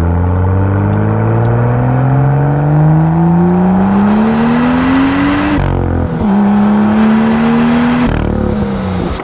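BMW M2's N55B turbocharged inline-six, breathing through a Dinan exhaust, under open-throttle acceleration. The engine note climbs steadily, drops at an upshift about five and a half seconds in, and climbs again. It falls away near the end as the throttle is lifted.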